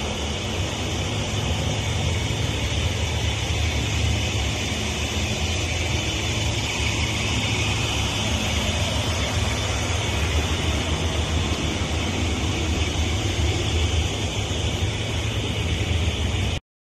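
Steady mechanical noise, like fans or machinery running, with a deep low rumble and a hiss; it cuts off abruptly near the end.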